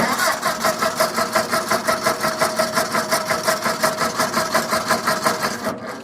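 Car engine being cranked over by its starter motor, a steady rhythmic chugging of about five pulses a second. Near the end the cranking stops and the sound fades away without the engine catching.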